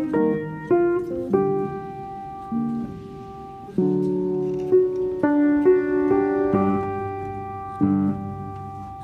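Background instrumental music led by piano, notes and chords struck every second or so and left to ring out.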